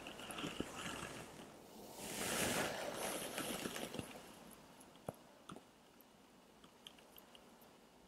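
Handling noise of watercolour painting: a brush scrubbing and rustling as paint is picked up from the tin palette, loudest about two to four seconds in, followed by a few faint clicks and taps.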